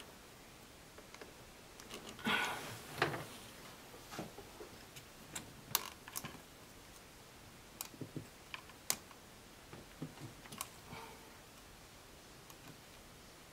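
Plastic diesel fuel return line connectors being pushed onto the injectors of a Mercedes OM642 engine by hand: faint handling noise about two seconds in, then scattered sharp small clicks as the fittings are worked onto their O-rings.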